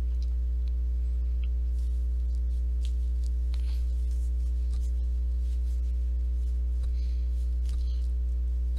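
Steady low electrical hum with a stack of fainter higher overtones, unchanging throughout, with a few faint soft ticks here and there.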